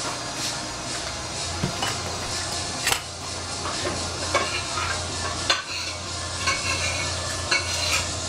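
Food sizzling in a covered stainless-steel frying pan, with sharp clicks now and then and a low steady hum.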